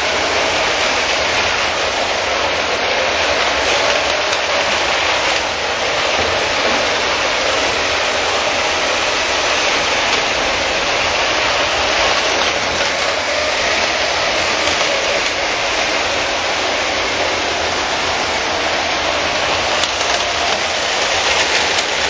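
Several LEGO trains running at once on plastic track laid over a wooden floor: a steady, loud mechanical clatter of small electric motors and wheels on the rails.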